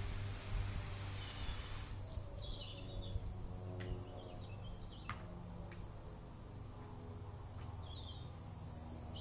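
Foam fire extinguisher discharging with a steady hiss that cuts off suddenly about two seconds in. After it stops, birds chirp in short bursts, with a few light clicks.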